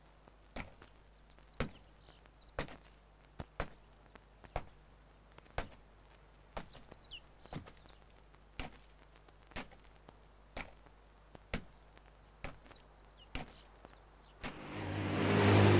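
Short landing thuds of a person jumping along a road, about one a second, with faint bird chirps. Near the end a car's noise and engine hum swell up loud as it passes close, the loudest sound here.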